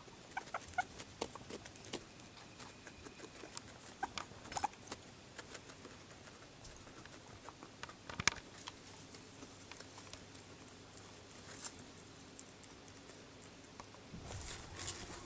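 Guinea pigs nibbling and tugging at cardboard toilet-roll chew toys: scattered soft clicks, taps and rustles of teeth on cardboard. A few brief squeaks come early and about four seconds in, one sharper click about eight seconds in, and louder rustling near the end.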